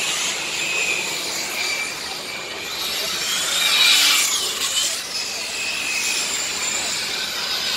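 Several radio-controlled model race cars running laps, their small engines giving a high-pitched whine that rises and falls as they accelerate and brake. About four seconds in, one car passes close by and its whine sweeps up loudest, then drops away.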